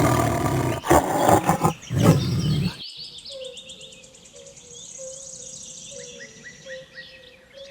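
Tiger roaring and growling, loud and rough, for the first few seconds, then cut off suddenly. What follows is a much quieter scene: small bird chirps over a faint steady hum.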